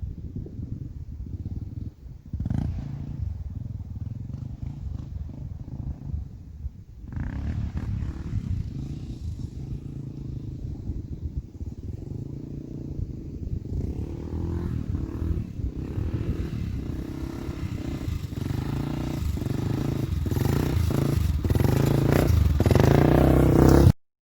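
Honda TRX400EX sport quad's single-cylinder four-stroke engine running and revving unevenly, swelling louder over the last few seconds before cutting off suddenly near the end.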